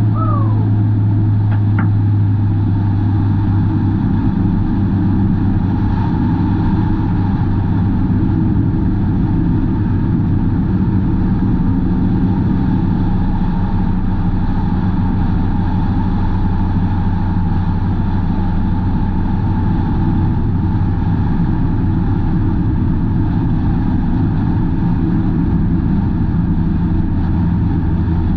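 Hornets-class race car engine running steadily at a nearly constant pitch, with little change in revs.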